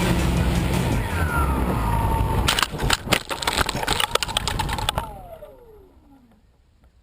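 Quadcopter electric motors whining, broken by a rapid run of sharp crackles and clicks, then a whine sliding steadily down in pitch as the motors spin down and fade out, typical of a drone losing radio control and crashing.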